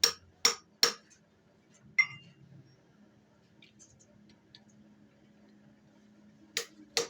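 Sharp metallic clinks of metal parts or tools knocking together: three quick ones in the first second, one about two seconds in, and two more near the end, over a faint steady hum.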